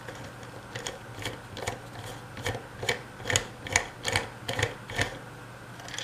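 Hand ratchet socket driver clicking in an even run of about eleven clicks, roughly two and a half a second, as it works loose the nut that holds a vacuum cleaner motor's fan impeller.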